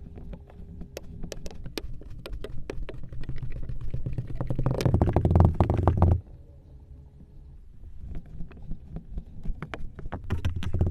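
Crackling and popping: scattered sharp crackles that thicken into a dense, loud crackle with a low squelchy rumble about five seconds in, cutting off abruptly soon after; a second bout builds from about eight seconds and swells again near the end.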